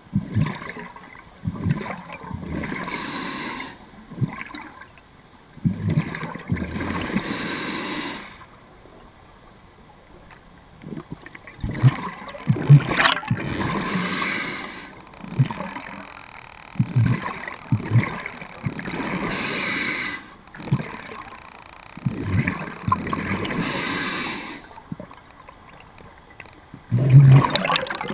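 Diver breathing underwater through a scuba regulator: a low gurgling rush of exhaled bubbles followed by a hissing inhale, repeating about every five seconds.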